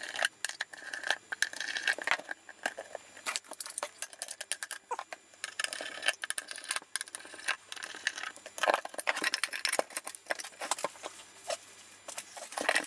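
Hand screwdriver undoing small steel screws from a metal electronics housing: a steady run of irregular small metallic clicks, scrapes and rattles as the screws are turned out, set down and the case is handled.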